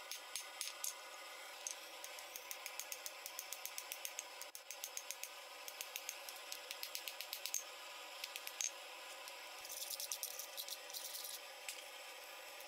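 Forging hammer striking a hot steel knife blade on an anvil, heard faintly as a quick series of sharp metallic ticks, densest about ten seconds in.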